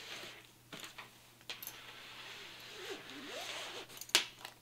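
Shotgun being slid into a padded nylon shotgun scabbard: a rustling, scraping rub of fabric against the gun, with a few small knocks and one sharp loud knock near the end.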